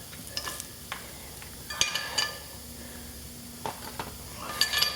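Steel wheel studs being slid and wiggled into the holes of a truck's rear hub flange: scattered light metallic clinks and scrapes, with a busier cluster about two seconds in and another near the end.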